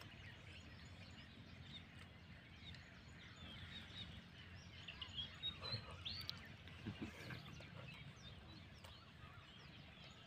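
Faint outdoor ambience: scattered small bird chirps and calls over a low, steady background rumble.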